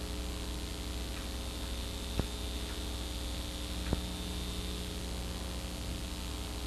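Steady electrical mains hum, with two sharp clicks about two and four seconds in.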